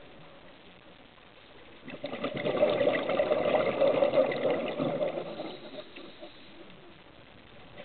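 Water noise heard through an underwater camera: a bubbling, gushing swell that rises about two seconds in and fades out by about six seconds, over a faint steady hiss.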